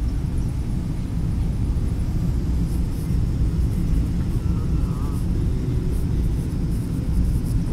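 Jet airliner cabin noise at a window seat: a steady, deep rumble of engines and airflow.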